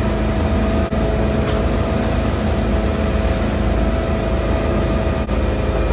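Motorboat engine running steadily at speed, with the stern wave churning and rushing behind the boat.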